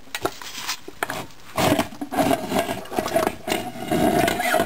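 A few sharp metal clicks, then a few seconds of scraping and rubbing as gloved hands work parts inside a 4L80E automatic transmission case.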